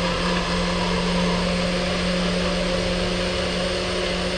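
NutriBullet blender running steadily, its motor giving a steady hum under a loud rushing whir as it blends frozen fruit and greens with water and yogurt.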